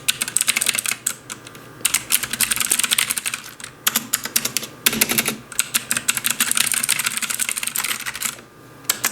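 Mechanical computer keyboard being typed on rapidly, a dense clatter of key clicks in quick runs broken by brief pauses.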